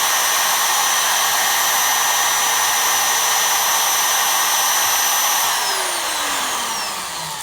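Spindle motor on an MPCNC running steadily at high speed with a high whine, then switched off about five and a half seconds in, its whine falling in pitch as it spins down.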